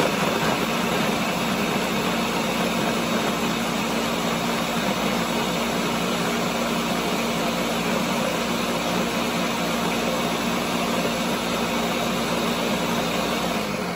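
Ninja countertop blender running on high, churning a thick mix of oats, almond milk, banana and almond butter: a steady motor whine over the rush of the liquid. It starts slowing down at the very end as it is switched off.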